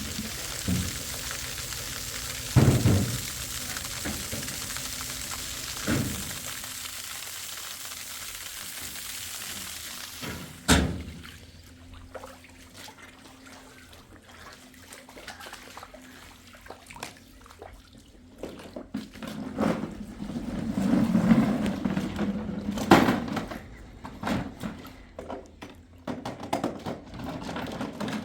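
Steady hiss of water with a few heavy thumps, cutting off suddenly about ten seconds in; after that, quieter scattered knocks and clatter.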